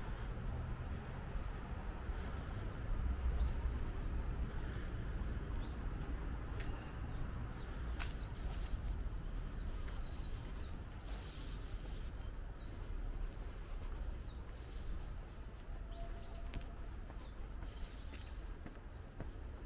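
Small birds chirping, many short high calls that grow thicker in the second half, over a steady low rumble of outdoor background noise. Two sharp clicks come about six and eight seconds in.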